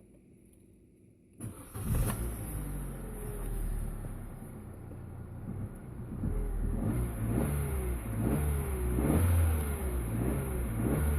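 Opel Meriva A's 1.4 Twinport four-cylinder petrol engine, starting up about a second and a half in after near silence. From about six seconds in it is revved repeatedly in quick throttle blips, the pitch rising and falling each time.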